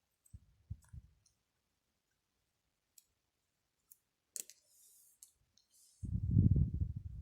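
Scattered small clicks and taps of smartwatch parts being handled, with a few low thumps in the first second and a louder stretch of low bumping about six seconds in.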